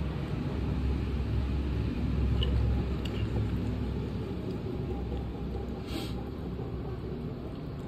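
Electric pedestal fan's airflow on the microphone: a steady low rumble that swells for a couple of seconds about a second in, with a few faint clicks and a brief hiss about six seconds in.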